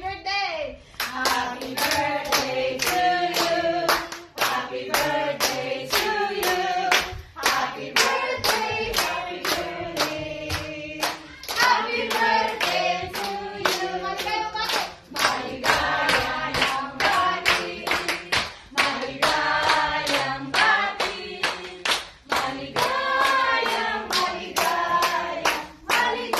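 A group of people singing together while clapping in time, a steady even beat of hand claps.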